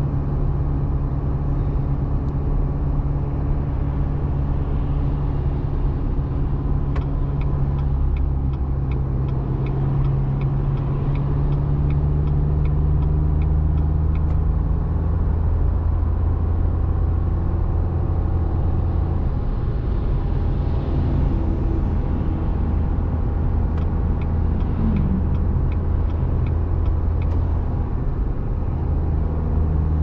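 Car engine under load on a steep uphill climb, heard from inside the cabin with road noise: a steady low drone whose note drops lower about halfway through. A light, rapid ticking comes in twice.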